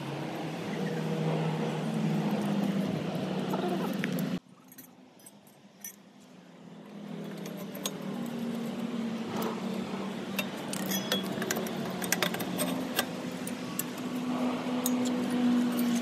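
Small metal clicks and clinks from handling the steel bike-rack frame, a bolt and a bracket, over a steady low hum. Everything cuts out abruptly about four seconds in and returns a few seconds later.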